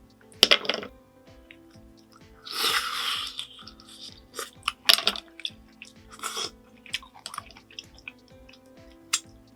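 Mouth sounds of a person eating spicy squid jjamppong ramyeon: wet chewing with short clicks and smacks, and one longer slurp about two and a half seconds in. Soft background music plays under it.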